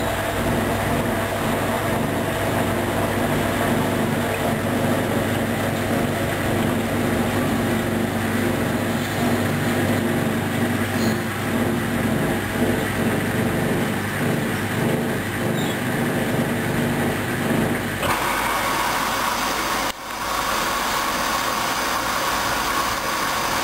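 Hoover DYN 10124DP washing machine running through its rinse-and-spin program: a steady motor hum with several held tones. About 18 seconds in the sound changes abruptly to a hissier hum with a higher tone, with a short drop about two seconds later.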